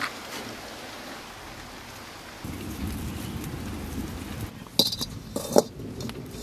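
Wood fire crackling in a mud chulha, with a low rumble joining about two and a half seconds in. Near the end, two sharp metal clinks as a steel kadai is set down on the stove.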